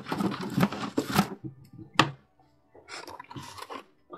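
Objects being handled and scraped on a desk, with one sharp click about two seconds in, then lighter rustling.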